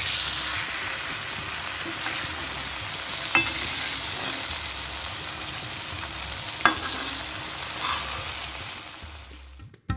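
Mango malpua batter deep-frying in hot vegetable oil in a kadai: a steady sizzle, with two sharp clicks about a third and two-thirds of the way through. The sizzle fades out near the end.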